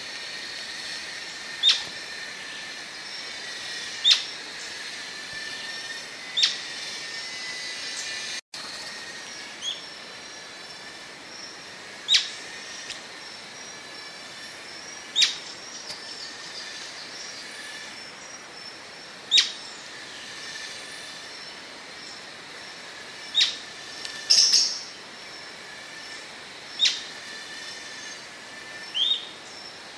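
Atlantic royal flycatcher (Onychorhynchus swainsoni) giving short, sharp, high-pitched calls, one every two to four seconds, over a steady background hiss. The sound drops out for an instant about eight seconds in.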